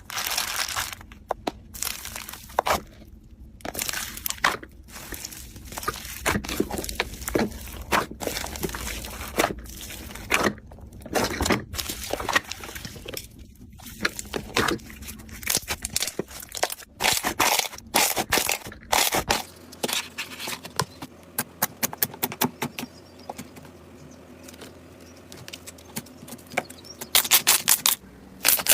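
Hands squeezing and poking slime, making irregular sticky clicks, pops and crackles, with a fast run of clicks near the end.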